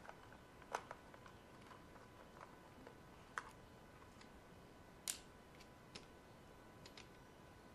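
Scattered light clicks and taps of a small screwdriver and the plastic housing of a steam iron being handled on a hard tabletop. The loudest click comes about five seconds in.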